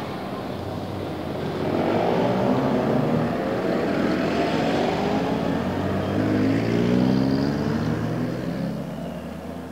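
A motor engine drones past, its pitch slowly rising and falling as it swells, then fades away near the end.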